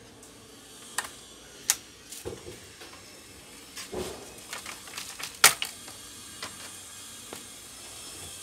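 Plastic snap-fit clips of a Toshiba Satellite C660 laptop's palmrest clicking and snapping as the top case is pried up and lifted off the base. It is a series of sharp, uneven clicks, the loudest about five and a half seconds in.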